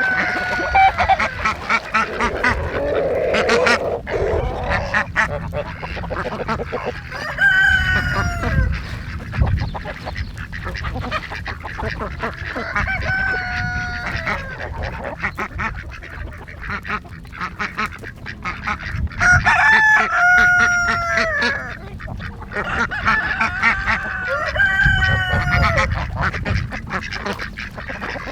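Domestic waterfowl honking in several bouts of rising-and-falling calls, against a steady patter of small clicks and rustles.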